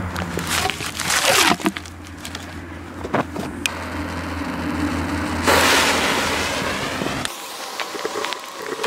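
Rustling and handling noise over a steady low hum while the fuse of a large firework shell is being lit, with a few sharp clicks. About five seconds in comes a loud hiss of roughly two seconds, which cuts off suddenly.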